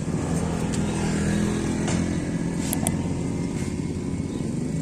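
Motorcycle engine running steadily, with a few light clicks about halfway through.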